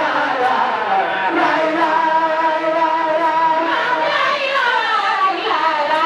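A large group of women singing a devotional tawhid chant together in unison, holding long notes.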